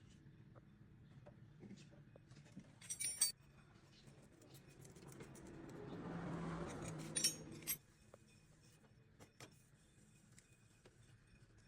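Scattered light metallic clinks and taps, with a cluster about three seconds in, and a soft rushing swell that rises and falls between about five and eight seconds.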